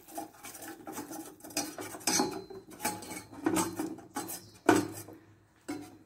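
Steel spoon stirring caramelized sugar syrup in a stainless steel saucepan, scraping and clinking against the pan in irregular strokes, the loudest about three-quarters of the way through.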